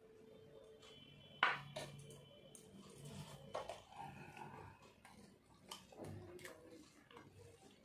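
A small bowl is set down on the table with a sharp clink about one and a half seconds in, ringing briefly. Soft clicks and rustles follow as fingers mix rice and dal on the plates.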